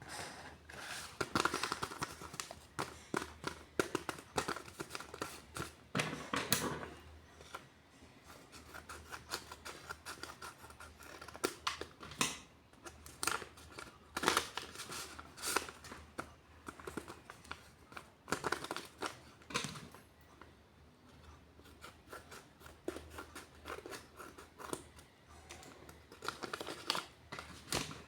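Handmade paper blind bag being opened: paper crinkling, tearing and snipping in irregular bursts of sharp crackles.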